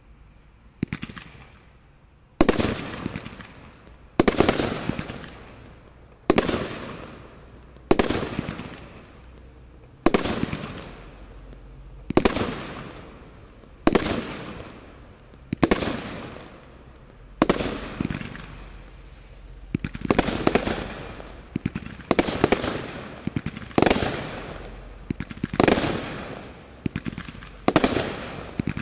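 Brothers Pyrotechnics 'The Big Show' firework cake (a Category 3 combination roman candle) firing its shots. A sharp report comes about every two seconds, each trailing off over a second or so. Near the end some shots come in quick pairs.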